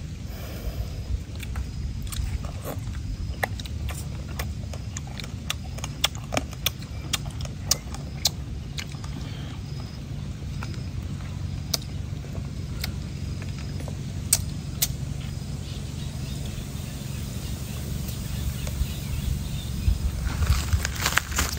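People eating, with scattered sharp clicks and crunches of chewing and of food and spoons being handled, over a steady low rumble.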